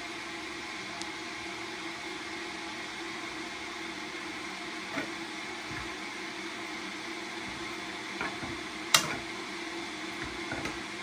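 Ramen in a pan on a gas hob with a steady hum and hiss under it, and a few light knocks of a utensil against the pan as the noodles are stirred, the loudest about nine seconds in.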